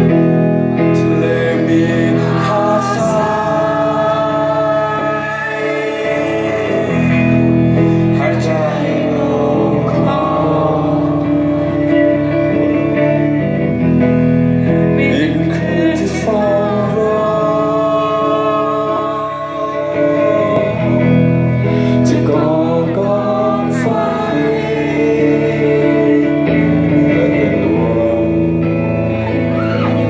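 Live band playing: a male singer's vocal over electric guitars, bass and drums, heard from among the concert crowd.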